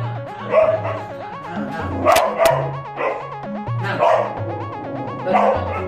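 A dog barking and yipping in short bursts, about five times, over background music with a repeating bassline.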